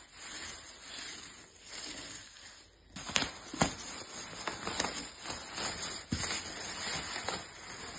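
Clear plastic packing sheet rustling and crinkling as it is handled and pulled off, with sharper crackles and snaps from about three seconds in.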